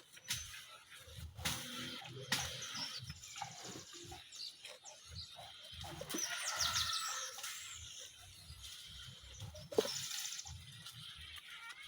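Birds chirping, with several quick trills, over an uneven low rumble. There is a single sharp click a couple of seconds before the end.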